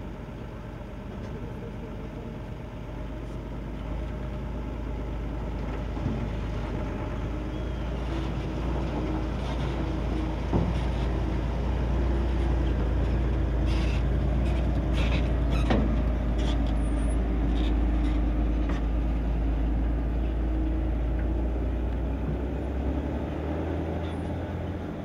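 Diesel dump truck's engine running steadily, growing louder over the first dozen seconds and easing off near the end, with a few sharp clicks in the middle.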